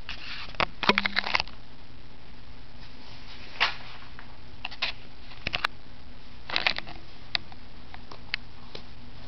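Scattered small clicks and rustles over a steady background hiss. They come in a quick cluster about a second in, again around five to seven seconds, and then as single ticks.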